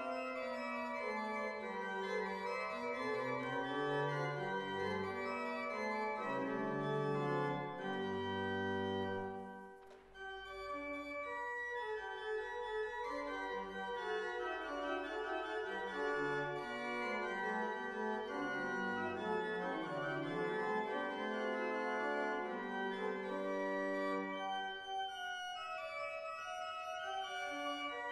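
Van Vulpen pipe organ in a church playing Baroque chorale music in several voices, with sustained low pedal notes beneath. The playing breaks off briefly about ten seconds in, then carries on.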